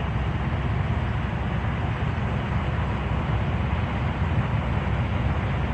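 Steady low rumble of road traffic, even and unbroken.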